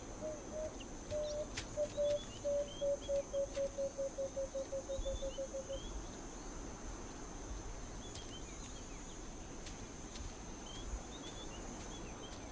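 Field ambience with a bird calling a run of short, low hooting notes that speed up and fade away over about five seconds. Under it are a steady high insect drone and faint chirps from small birds.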